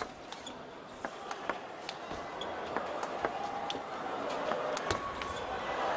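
Table tennis ball clicking off the rackets and the table in a long rally: sharp ticks at an irregular pace, over a crowd murmur that swells toward the end.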